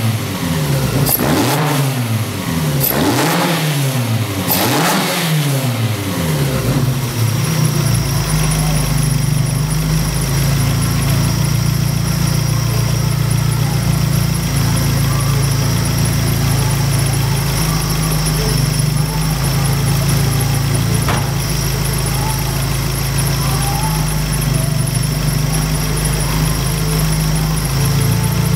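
Toyota 3S-GE inline-four fitted with titanium individual throttle bodies (quad throttles), blipped three times in quick succession, each rev rising and falling, then settling to a steady idle for the rest of the time.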